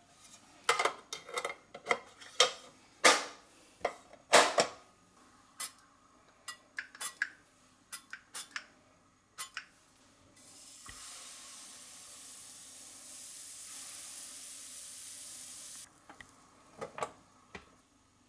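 Clicks and clatter of the Silvercrest waffle maker's interchangeable plates being handled and fitted. Then a steady sizzling hiss lasts about five seconds as waffle batter goes onto the hot plates. A few clicks follow near the end as the lid is shut.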